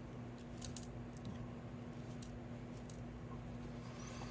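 Faint steady low hum with a few light clicks and ticks of small craft pieces being handled.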